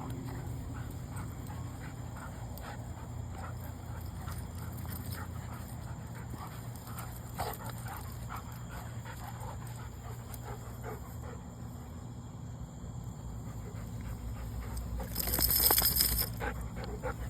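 Dog whimpering in short, scattered little sounds over a steady low hum, with a loud rustling burst about a second long near the end.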